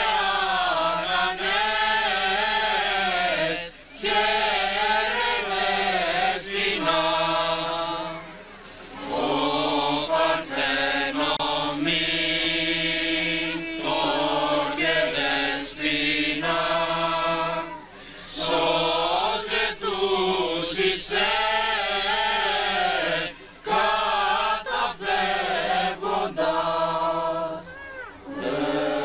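Choir singing a Greek Christmas carol (kalanta) in long phrases, with short breaks between phrases every few seconds.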